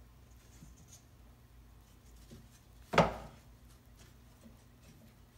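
One sharp wooden knock about three seconds in, with a short ring-out: MDF cabinet-door parts set down against the router table top. A faint low hum runs underneath.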